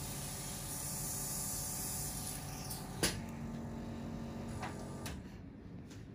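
Room background noise with a faint steady hum, broken by one sharp click about three seconds in; a low steady tone sounds for about two seconds after it, with a couple of fainter clicks near the end.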